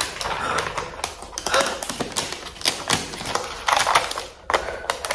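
Unboxing handling noise: irregular crackling, rustling and clicking as packaging wrap is pulled off a new laptop.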